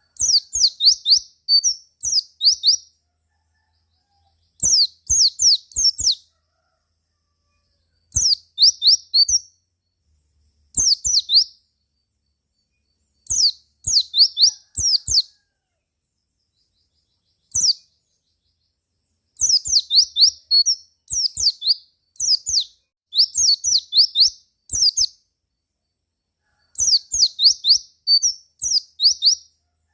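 White-eye (pleci) twittering in short bursts of rapid, high-pitched chirps, each burst a second or two long, with dead silence between bursts.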